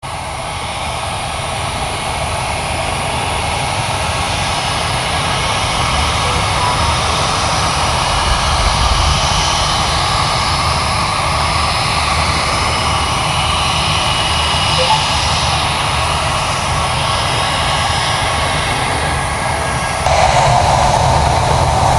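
Jet airliner's engines roaring at takeoff power, a steady noisy roar with faint whining tones above it, slowly growing louder. The level jumps up near the end.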